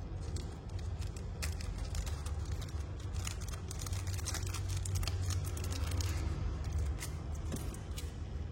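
Scattered short clicks and taps from a Zippo lighter's metal case being handled, over a steady low rumble.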